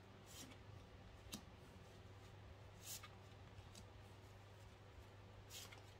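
Cards from a Katina fortune-telling deck being drawn and laid on a tabletop: about four faint, soft swishes and taps over a low steady hum.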